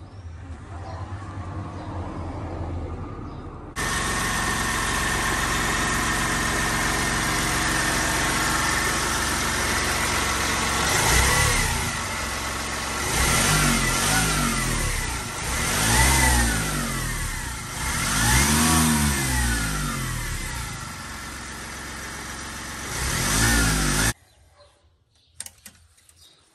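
Mitsubishi Colt 1.5 three-cylinder diesel engine running at idle after fresh oil has been put in, then revved up and let fall back four times in the second half, each rev a rising then falling note. The sound stops suddenly near the end.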